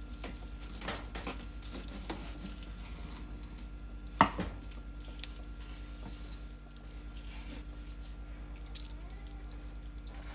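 A long knife slicing through a smoked brisket's bark on a wooden cutting board: soft scraping and light taps, with one sharper knock about four seconds in, over a steady hum.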